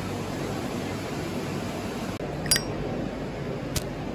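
Steady mechanical hum and hiss of the pumping-engine machinery in a steam engine hall, with two short sharp clicks about halfway through and again near the end.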